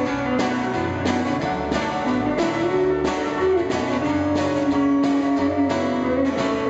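Live rock'n'roll band playing an instrumental break: a guitar carries the melody in held, bending notes over a steady, even beat, with no vocals.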